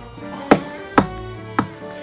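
Background music with bowed strings, over which three sharp knocks sound, about half a second apart.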